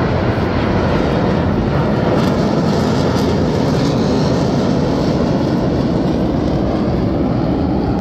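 Loud, steady jet noise from a formation of T-50B aerobatic jets flying over.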